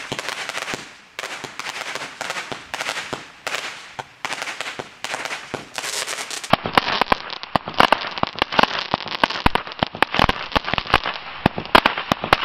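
Consumer fireworks firing in quick succession: a dense stream of crackling bursts. About halfway through, a louder run of many sharp pops and bangs follows.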